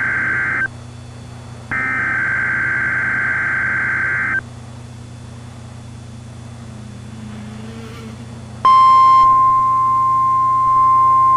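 Emergency Alert System tornado warning opening: two bursts of buzzing SAME header data tones, then a few seconds of low hum. About nine seconds in, the loud, steady single-pitch NWS warning alarm tone near 1050 Hz begins.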